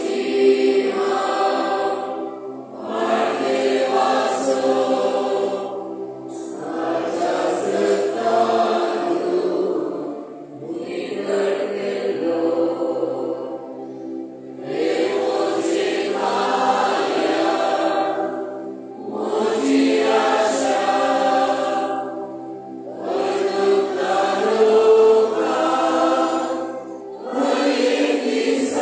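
Choir singing a hymn at Mass, in phrases of about four seconds with short breaks between them, over a steady low sustained tone.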